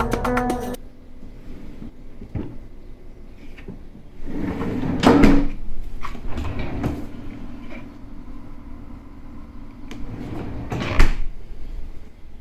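Background music cuts off about a second in. It is followed by scattered knocks and clunks of doors or drawers being opened and shut, the loudest about five seconds in and again near the end.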